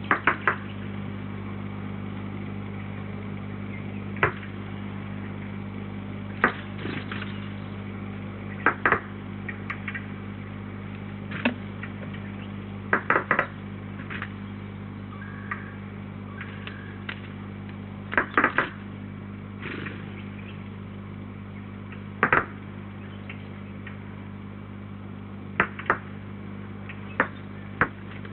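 A steady low electrical hum with a dozen or so short, sharp knocks and taps at irregular intervals, some in quick pairs.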